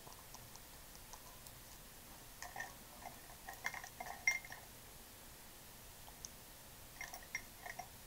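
Faint small clicks and light creaks in two short clusters, a few seconds in and again near the end, with quiet room tone between.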